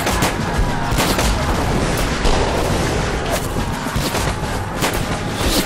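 Rifle gunfire in a skirmish: many shots fired in irregular, quick succession.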